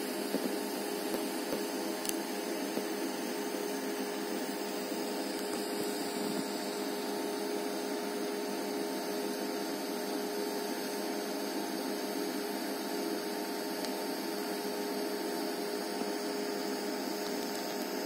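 DC TIG (argon) welding arc on thin 0.8 mm sheet at about 50 A, run without filler wire along a corner joint: a steady hiss with an even electrical hum.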